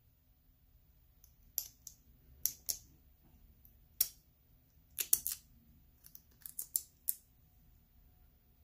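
A series of sharp, separate plastic clicks and taps, about a dozen spread over several seconds, from handling and opening a small plastic jar of loose glitter.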